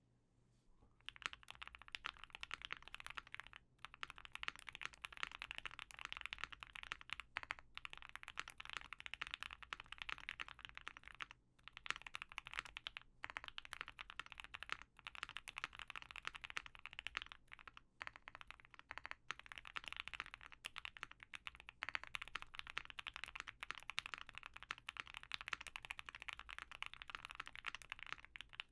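Fast, continuous typing on an OwLab Mr. Suit custom mechanical keyboard fitted with lubed Banana Split linear switches, a POM plate and GMK keycaps. It gives a dense run of keystroke clacks with a few brief pauses, starting about a second in.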